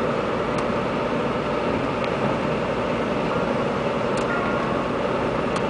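Steady road and engine noise inside a moving car's cabin, with a few faint clicks.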